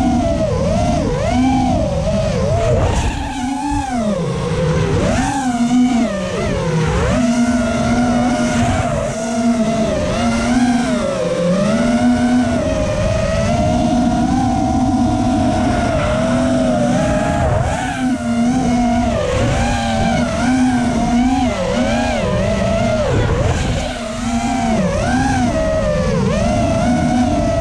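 Brushless motors and propellers of an FPV racing quadcopter, heard from its onboard camera: a continuous whine whose pitch swings up and down constantly with the throttle as it banks and turns.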